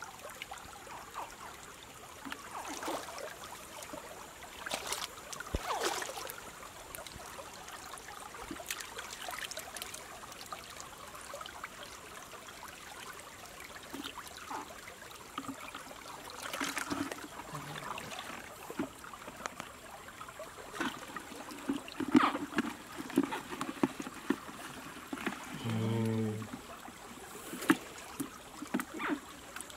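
Shallow stream trickling steadily, with scattered knocks and scrapes from handling small animals in a plastic bucket. Near the end comes one brief low pitched sound lasting under a second.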